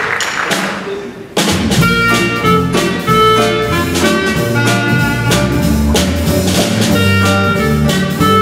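Live small band playing an instrumental intro: clarinet melody over electric guitar, electric bass and drum kit, in a jazzy swing feel. It opens with a brief fading wash of noise, then the full band comes in sharply about a second and a half in.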